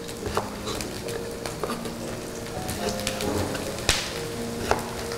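A chef's knife knocking on a bamboo cutting board a few times, the sharpest knock about four seconds in, over a light sizzle of food frying in a nonstick pan. Soft background music with low held notes runs underneath.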